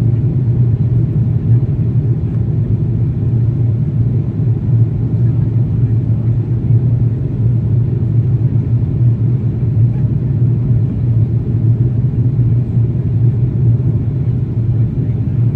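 Steady low rumble inside a jet airliner's cabin in flight: engine and airflow noise heard at a window seat, unchanging throughout.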